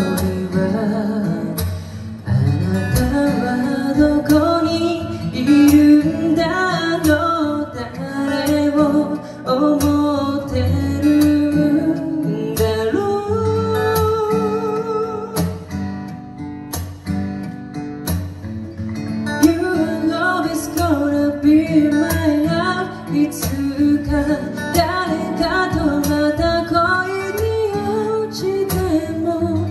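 A male vocalist sings a slow ballad live, accompanied by an acoustic guitar.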